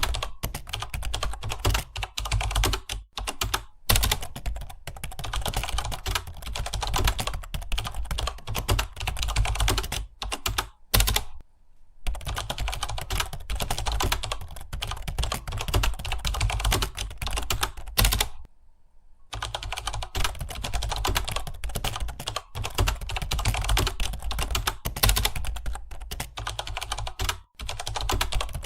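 Fast, continuous typing on a computer keyboard: a dense stream of keystroke clicks, broken by two short pauses, about twelve seconds in and again around eighteen seconds in.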